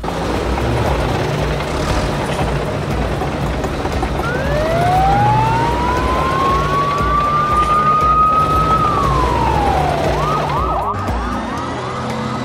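Police siren sound effect: a slow wail that rises for several seconds and drops, then switches to a fast yelp of about four sweeps a second. A low engine sound runs underneath throughout.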